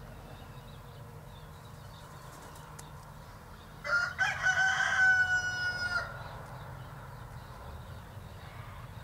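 A rooster crowing once about four seconds in: a single cock-a-doodle-doo about two seconds long, ending on a long held note.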